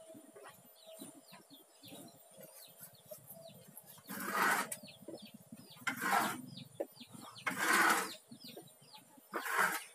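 Four loud, noisy swishes, each about half a second long and spaced roughly one and a half to two seconds apart, over faint bird chirps throughout.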